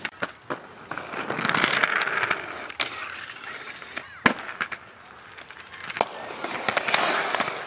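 Skateboard wheels rolling on concrete, with several sharp clacks of the board. The loudest clack, about four seconds in, comes as the board hits the concrete ledge.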